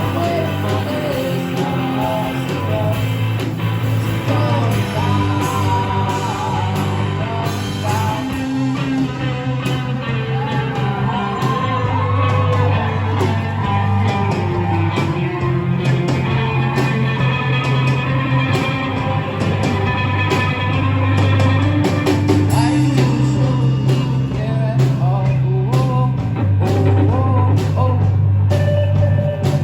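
Rock band playing a song: a voice singing over guitar and long held bass notes.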